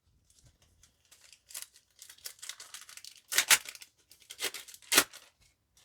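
A trading-card pack wrapper being torn open: crinkling from about a second and a half in, with sharp tears at about three and a half and five seconds.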